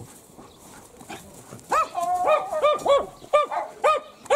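A dog barking in a quick series of about seven barks, starting a little under two seconds in, one of them drawn out longer than the rest.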